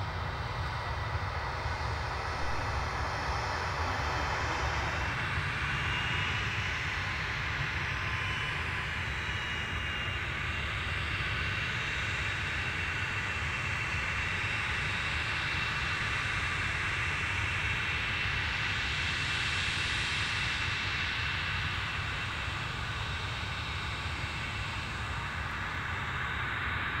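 Jet airliner turbofan engines of a landing Embraer 190, with a steady high whine that sets in about six seconds in and holds until near the end. Under it runs a steady low rumble, and a swell of rushing noise comes around two-thirds of the way through.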